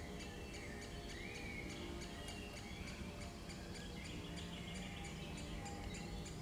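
Soft background music with held notes and an even ticking beat, about three ticks a second. Bird chirps are mixed in.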